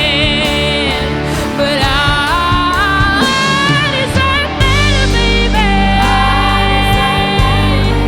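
Live rock band music from electric guitars, bass guitar and drums, with a lead melody that bends and wavers in pitch. The low end grows fuller about four and a half seconds in.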